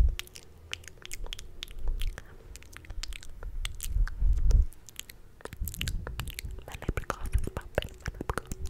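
Close-miked ASMR mouth sounds: quick wet clicks and lip smacks in a rapid, irregular string. There are low, muffled bursts against the microphone at the start and again about four seconds in.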